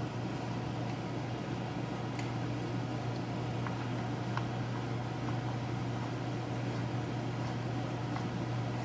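A steady low hum of a fan motor running, with a few faint scattered ticks.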